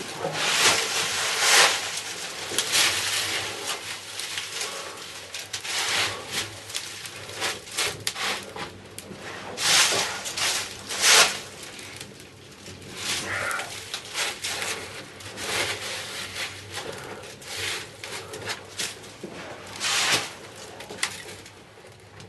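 Combustible material (dry leaves and paper) burning in a raku kiln, crackling and hissing in irregular flaring bursts that rise and fall. The fire is starving the stoneware glazes of oxygen: the reduction step that brings out metallic colours.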